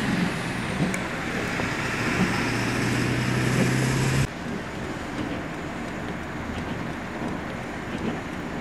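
Roadway noise from vehicles at a highway crash scene: a steady rumble with a low engine hum. About four seconds in it drops suddenly to a quieter, even hiss.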